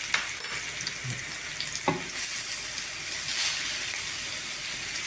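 Spices frying in hot oil in a pan, a steady sizzle, with a few light utensil clicks as they are stirred.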